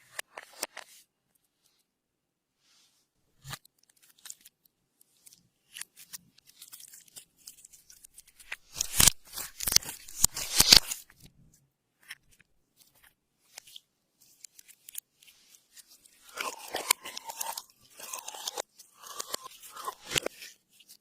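Clear slime being pressed and worked by hand, giving wet crackling and popping clicks, with a loud dense flurry about nine to eleven seconds in and another from about sixteen seconds on.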